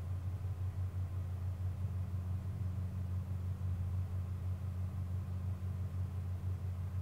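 A steady low hum with no other distinct sounds.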